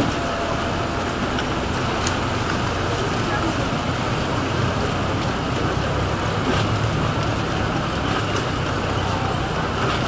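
Steady low hum of motorboat engines running at low revs, under the indistinct chatter of a crowd.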